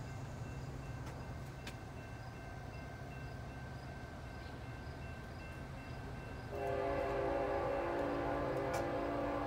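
Horn of an approaching, still unseen CSX freight locomotive sounding one long multi-note chord, starting about two-thirds of the way in, over a steady low rumble.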